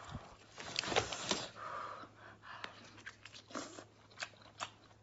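Close mouth sounds of someone chewing boiled lobster meat, with scattered sharp clicks and cracks as the lobster shell is pulled apart; the loudest cracks come about a second in.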